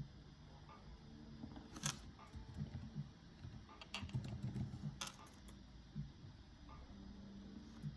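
Typing on a computer keyboard with clicking: scattered soft key taps, the busiest stretch between about two and five seconds in, with sharp clicks about two, four and five seconds in.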